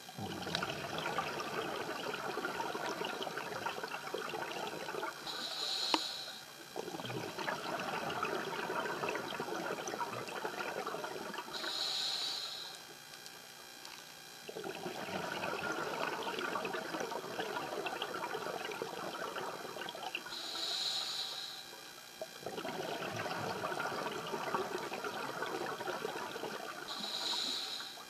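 Scuba diver breathing through a regulator underwater: long crackling streams of exhaled bubbles, broken four times by a short hissing inhalation.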